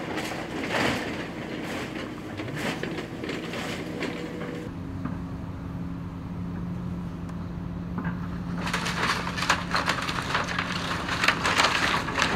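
Demolition excavator's diesel engine running steadily while its bucket tears into a wood-framed building, with timber and debris cracking and crunching. The crunching is heaviest from about nine seconds in.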